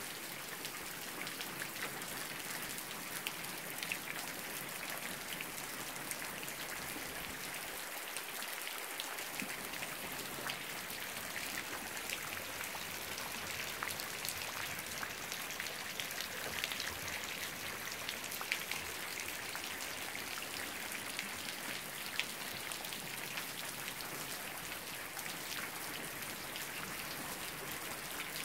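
Steady rain falling on foliage and wet ground, a constant hiss with many separate drops ticking close by.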